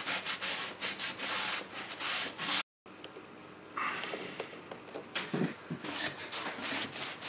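A cloth rubbing quick back-and-forth strokes over the glued end grain face of a clamped wooden cutting board, wiping off glue squeeze-out. After a brief cut to silence about two and a half seconds in, fainter knocks and rubs follow as the clamped board is handled.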